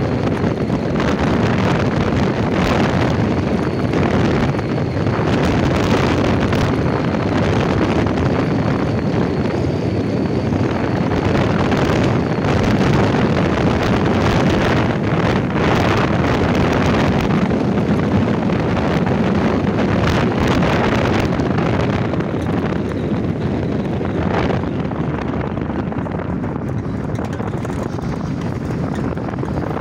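Wind rushing and buffeting over the microphone of a moving car, over steady road and engine noise. The rush eases a little in the last several seconds.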